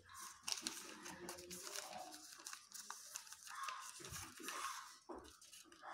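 Sheet of paper rustling and crinkling as it is folded and creased by hand, with a few sharp crackles.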